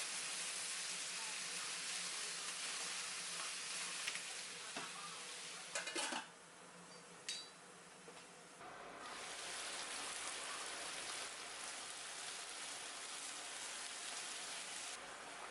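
Food sizzling in a frying pan, a steady hiss with a few clinks of a utensil against the pan about six seconds in. The sizzle drops away just after the clinks and comes back about two and a half seconds later.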